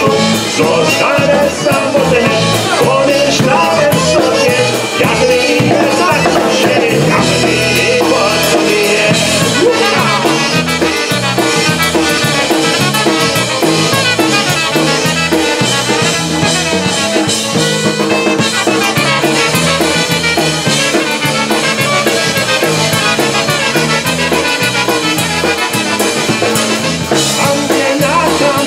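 A polka played live by a small band with brass and a drum kit, with a steady beat.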